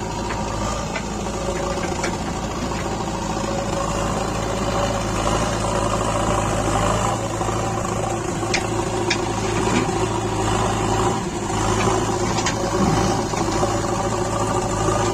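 JCB 3DX backhoe loader's diesel engine running steadily, with a few sharp knocks over it about two-thirds of the way through.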